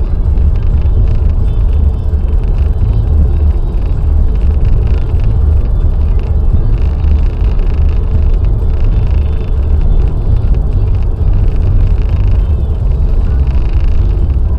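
Car driving along a motorway: a steady, loud low rumble of engine and road noise.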